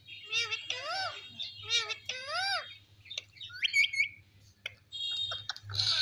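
Ring-necked parakeets calling: about four short calls that rise and fall in pitch, then a few sharp high chirps, with busier, louder chatter near the end.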